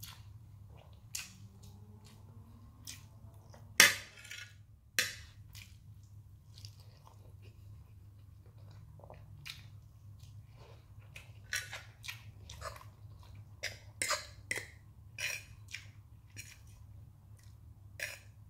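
Close-up eating sounds: a person chewing and smacking on a mouthful of instant noodles and fried egg, a run of short wet clicks and smacks. A sharp louder click comes about four seconds in, with another a second later, over a low steady hum.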